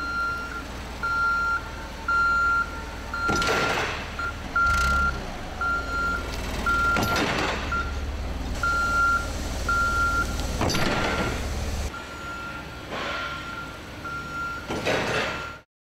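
Daewoo GC25S forklift reversing, its backup alarm beeping about once a second over the engine, as its rear counterweight rams a heavy-duty guardrail with several loud crashes. The engine drops away near the end.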